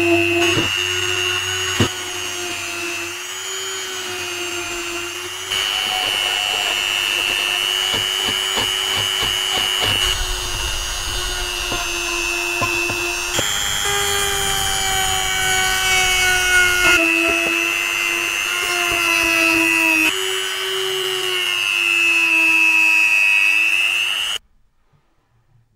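Handheld rotary tool running at high speed, its small wire brush and sanding drum grinding rust off the metal frame of a hand drill. A steady high whine that jumps slightly in pitch a few times, then cuts off suddenly near the end.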